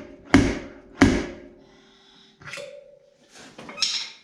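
Two sharp metal strikes about two-thirds of a second apart, each leaving a short metallic ring, as a dent is pulled out of the steel body panel. Lighter clicks and rattles from the tool follow near the end.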